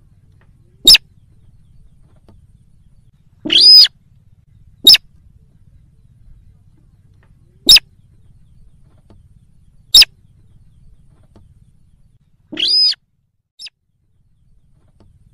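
Slaty-breasted rail calling, a recorded lure call: four very short, sharp high notes spaced a few seconds apart, and two longer, harsher notes of about a third of a second each, one a few seconds in and one near the end.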